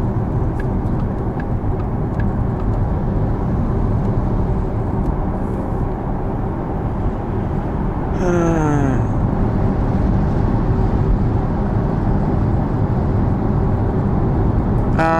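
Steady road and tyre noise inside the cabin of a Porsche Taycan Turbo S driving on a wet road, with no engine sound from its electric drive. A short falling tone sounds about eight seconds in.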